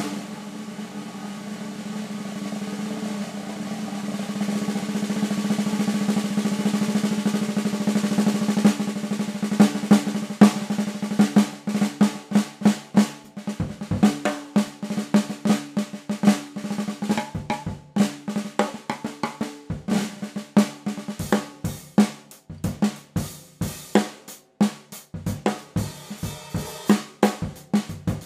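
A 14 by 5 snare drum played as a continuous roll that grows louder over about nine seconds, then broken into separate sharp strokes at uneven spacing, with bass drum hits underneath.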